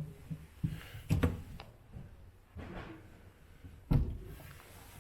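Knocks and thumps of a bowrider's fittings being handled and moved about on: a few light knocks about a second in and one heavy thump near four seconds.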